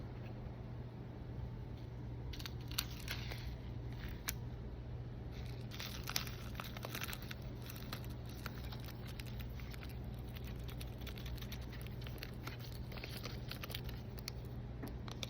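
Packaging being handled, with intermittent crinkling and tearing and a few sharp clicks, in several bursts over a steady low hum.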